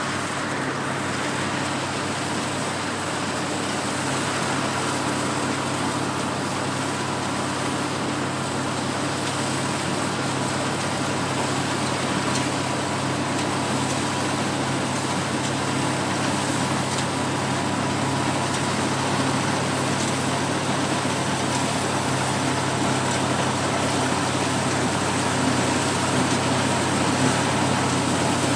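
Oliver 430 combine running while harvesting wheat: its Chrysler 265 flathead six-cylinder gasoline engine and threshing machinery make a steady drone with a constant hum and a thin whine, growing gradually louder.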